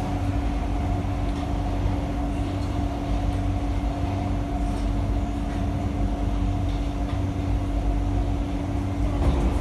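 Cabin of an SMRT C151A metro train (Kawasaki & CSR Sifang) running at speed between stations: a steady rumble of wheels on the track with a steady hum underneath.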